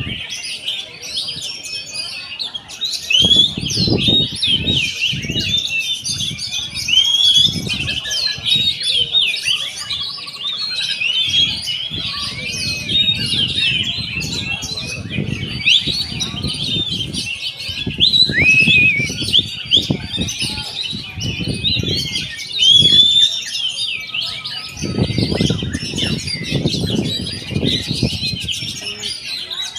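Oriental magpie-robin (kacer) singing without a break: a rapid, dense stream of varied whistles, chirps and chattering notes. Low, irregular sounds come and go underneath.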